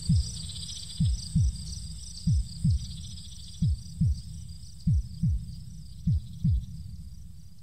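The song's outro: a heartbeat effect of paired low thumps, each falling in pitch, a pair about every one and a quarter seconds, over a steady chirring of crickets. The thumps stop near the end and the whole fades out slowly.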